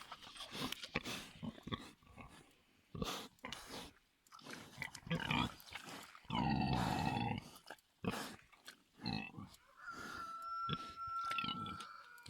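Mangalitsa pigs grunting in short, irregular bursts while being showered with a hose, with one longer, louder call about six and a half seconds in. A thin steady tone sounds near the end.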